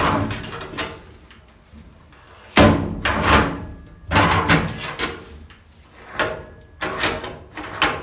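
Metal storage-bin door on a box truck being worked open and banged shut several times, the paddle-handle latch and its linkage rod clacking. The loudest bangs come about two and a half to three and a half seconds in. The repaired latch is catching properly.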